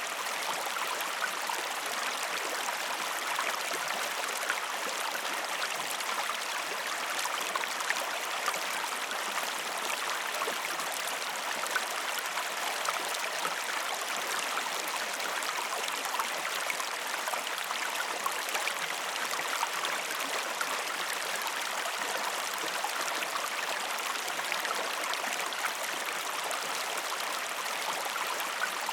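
Mountain stream cascading over rocks: a steady rush of water with fine splashing and gurgling.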